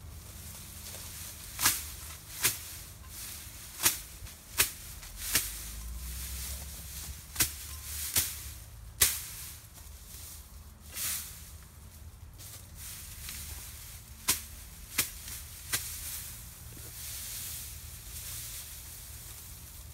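Machete blade chopping through tall grass: about a dozen sharp swishing cuts at uneven intervals, several in quick succession in the first half, fewer and more spread out later.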